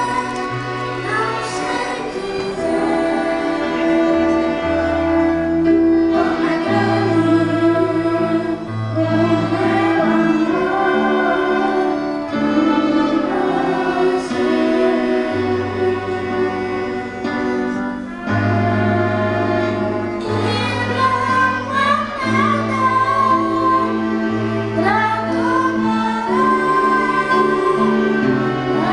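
Music with singing, including female voices, over a bass line that moves in steady steps.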